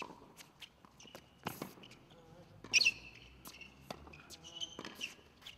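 Tennis rally on a hard court: sharp pops of racket strikes and ball bounces, the loudest a little under three seconds in, mixed with short high squeaks of sneakers on the court surface.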